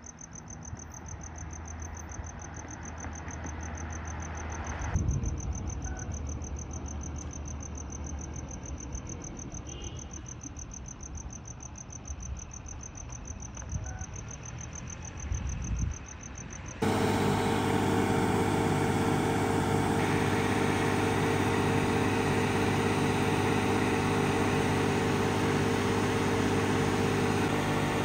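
Crickets chirping in a steady rapid trill over a low, distant engine hum. About seventeen seconds in the sound cuts abruptly to a loud, steady idling vehicle engine with an even drone.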